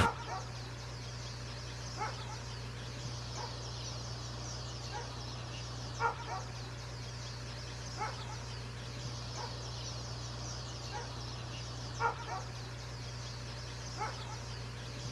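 Short bird calls, one every two to four seconds, over a steady low hum and a dense high-pitched hiss.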